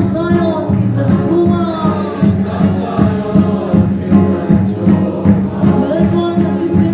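A congregation singing a hymn together in chorus, with a steady beat keeping time.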